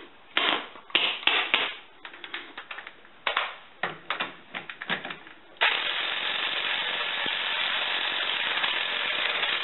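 Electric impact wrench working a wheel's lug nut: a string of short metal clanks and brief bursts, then from about halfway a continuous, loud hammering run.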